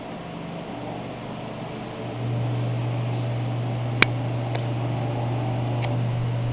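A steady low mechanical hum, fainter for the first two seconds, with one sharp click about four seconds in and two faint ticks after it.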